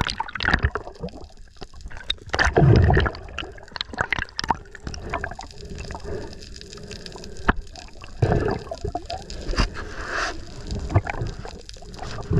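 Sea water splashing and gurgling around a swimmer at the surface, in irregular bursts over a steady wash.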